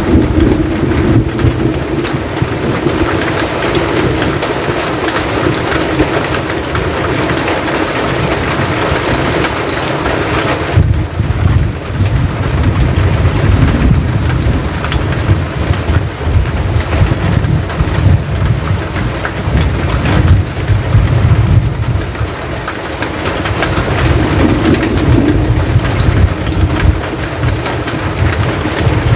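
Steady rain falling on a metal roof and the wet ground around it, a continuous hiss over a deep rumble that swells and fades.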